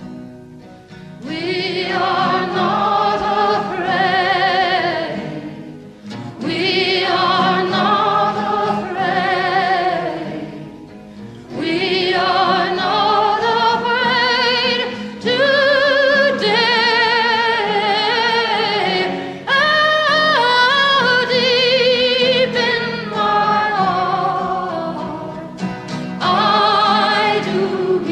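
A woman's high solo voice singing a slow song in long held phrases with wide vibrato, with short breaks between phrases and a soft low accompaniment underneath.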